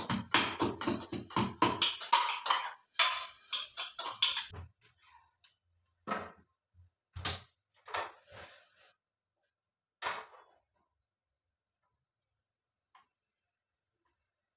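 Background music with a beat that cuts off about four and a half seconds in, followed by a few scattered clinks and scrapes of a steel ladle and cooking pots on a gas stove.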